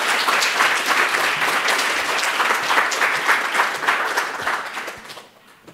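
Lecture-hall audience applauding, a dense steady clapping that dies away near the end.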